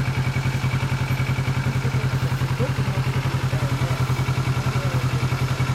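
Motorcycle engine idling steadily with an even, fast pulse.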